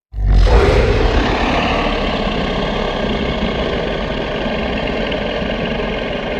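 A sound effect: a loud, steady rush of noise with a deep rumble underneath, starting abruptly out of silence and holding.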